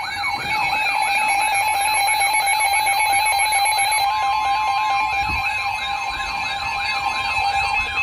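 Electronic emergency-alert tone from a severe weather warning broadcast: a siren-like warble sweeping up and down about four times a second over steady high tones.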